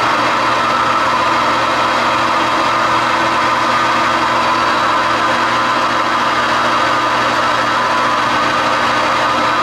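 Metal lathe running steadily, its motor and gearing giving a constant hum with a high, even whine.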